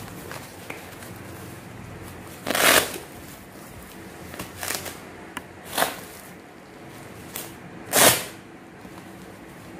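Upper-arm blood pressure cuff being wrapped and fastened: about five short scratchy rips of its hook-and-loop strap and fabric, the loudest about three seconds in and about eight seconds in.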